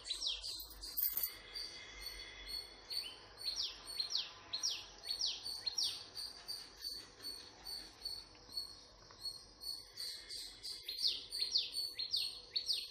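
Outdoor morning animal calls: runs of quick, high, falling chirps that come and go, over a steady high insect trill.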